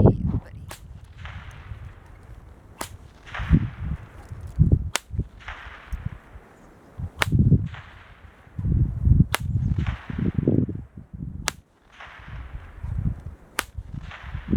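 A 7-foot stock whip cracking seven times, about two seconds apart, each sharp crack followed by a short echo. Low rumbling noise fills the gaps between the cracks.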